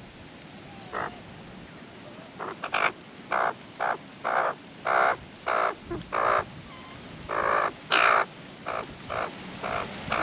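Australian magpie giving a run of short, harsh calls, about two a second, starting about a second in.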